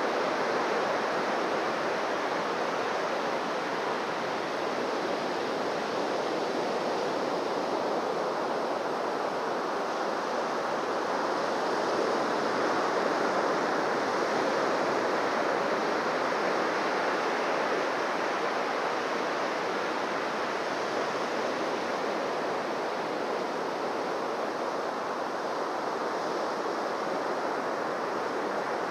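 Ocean waves washing on a beach: a steady rush of surf that swells and eases gently in level.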